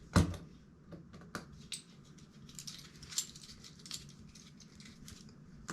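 Small clicks and scrapes of hands and a tool working a screw out of a fat bike tire, with one sharp click just after the start and irregular light ticks after it.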